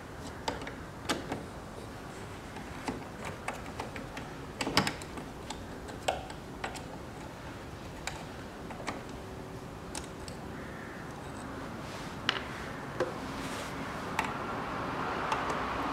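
Scattered metallic clicks and light knocks, roughly one a second and irregular, the loudest about five seconds in, from a hand socket driver loosening the bolts of an oil catch can (oil separator) in an engine bay. A soft rushing noise builds near the end.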